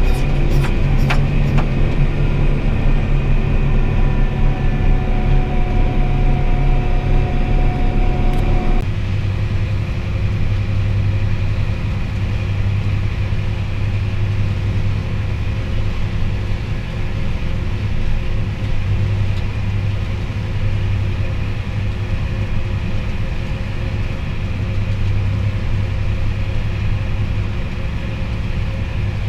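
Truck engine running steadily, heard from inside the cab. About nine seconds in the sound changes abruptly to a steadier low hum.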